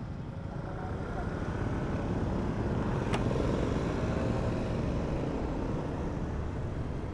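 A Honda Beat scooter's small single-cylinder engine running while riding, heard as a steady low rumble of engine and road noise that swells a little about two seconds in. There is one sharp click about three seconds in.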